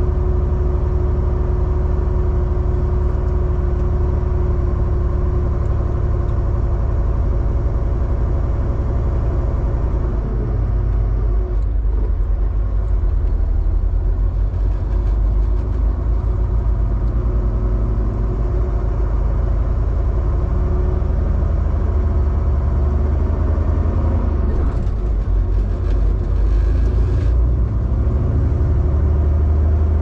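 Semi truck's diesel engine running steadily while driving, with tyre and road noise; the engine note drops and changes about ten seconds in.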